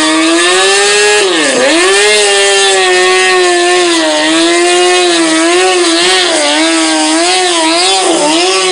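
Motorcycle engine revved high and held there, its pitch wavering as the throttle is worked, with a sharp dip in revs about one and a half seconds in and another near the end.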